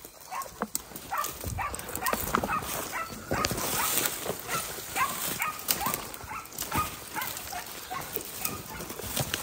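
Hunting dog barking repeatedly, short sharp barks coming about two a second.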